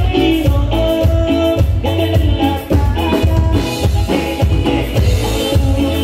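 Norteño band music playing loud: melody notes over a steady bass and drum beat.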